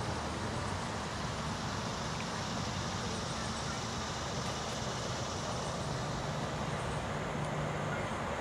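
Steady low engine hum under an even outdoor background noise, with no horn or other sudden sound.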